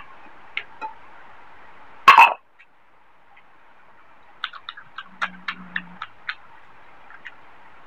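Close-miked mukbang eating sounds from a person eating rice and curry by hand. One loud, short burst comes about two seconds in, then a quick run of about ten sharp chewing and lip-smacking clicks with a brief low hum from the mouth.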